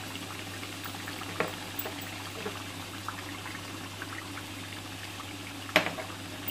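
Mutton curry gravy bubbling at a simmer in a pot, with many small pops. A single sharp clink near the end.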